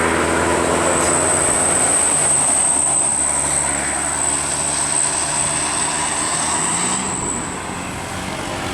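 A bus's diesel engine running close by with road noise and a steady high whine, the whole sound fading about seven seconds in.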